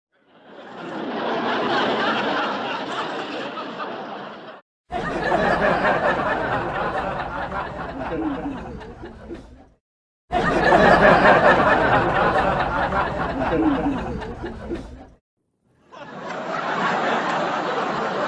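Canned studio-audience laughter from a laugh track: four separate crowd laughs, each a few seconds long, with short silent gaps between. The first fades in, while the second and third start abruptly.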